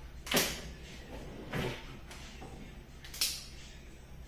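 Three short knocks and clicks of kitchen things being picked up and set down on a worktop and cutting board, spaced more than a second apart. The last one is the sharpest.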